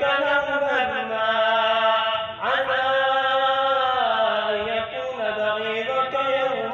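A solo male voice chanting an Arabic religious recitation into a microphone, holding long, wavering notes. He breaks off briefly about two and a half seconds in, then starts a new phrase.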